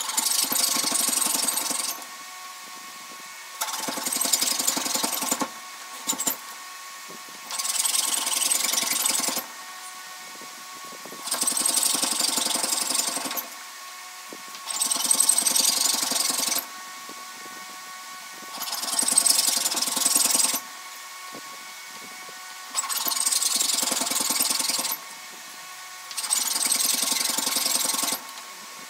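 Fine-tooth fret saw cutting fret slots across a karri guitar fingerboard in a mitre jig: eight spells of fast rasping strokes about two seconds each, one slot per spell, with short pauses as the board is moved on to the next slot.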